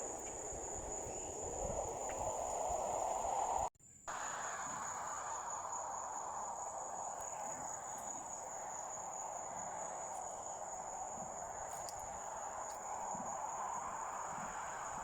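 Insects trilling steadily at a high pitch over a soft rushing background. The sound cuts out completely for a moment about four seconds in, then resumes unchanged.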